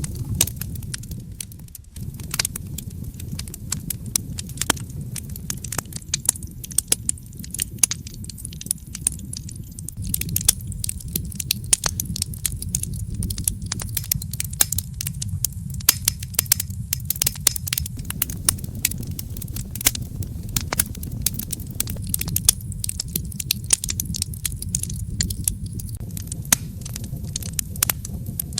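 Wood fire crackling in a fireplace: frequent irregular pops and snaps over a steady low rumble of the flames.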